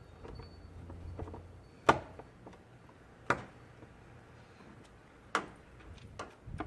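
Three sharp clicks or knocks, each about a second and a half to two seconds apart, with a few fainter ticks near the end; a low steady hum sounds under the first two seconds.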